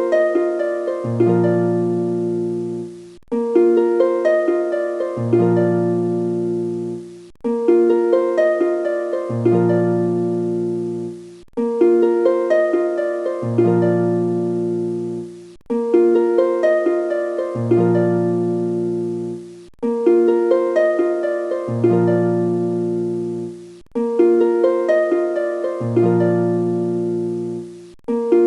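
Background music: a plucked harp-like melody looping a short phrase about every four seconds, with a low bass note coming in partway through each phrase.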